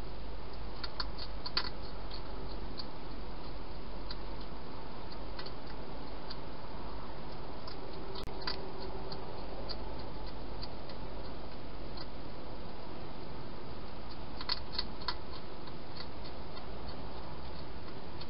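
Hedgehog feeding at a bowl: faint, irregular small clicks and crunches of chewing, in a few quick clusters, over a steady hiss.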